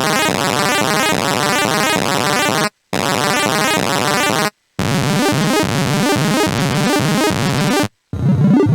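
UVI 8-Bit Synth software instrument playing a fast built-in chiptune arpeggiator pattern. It plays in three held passages of rapid repeating notes, each cut off by a brief silence.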